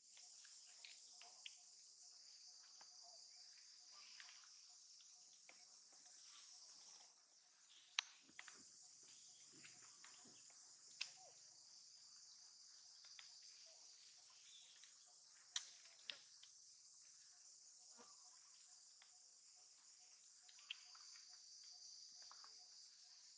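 Faint, steady high-pitched insect chorus droning without a break, with a few sharp isolated clicks scattered through it, the loudest about eight seconds in.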